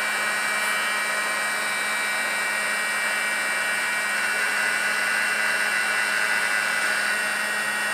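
SG668A two-way electric air pump, a small motor-driven blower, running steadily as it inflates an inflatable pool: a constant whine with a low hum underneath.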